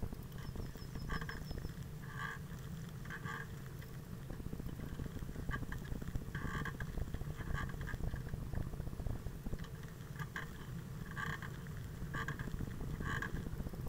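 Steady wind and road rumble from a ride along a paved path, with short squeaky chirps in runs about a second apart and a brief high trill near the start.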